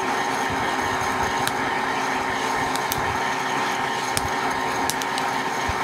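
Hot-air popcorn popper's fan and heater running steadily while the coffee beans spinning inside give sharp, scattered pops, about one a second at irregular intervals. These are the first crack of the roast, the clear popping that marks the beans reaching the first stage of roasting.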